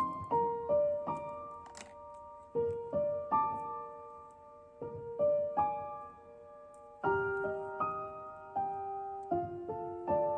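Slow, soft background piano music: single notes and chords struck one after another and left to fade.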